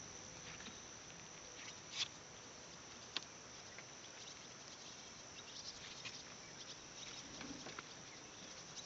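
Faint, steady high-pitched chirring of evening insects, with scattered light ticks and taps, the sharpest about two seconds and three seconds in.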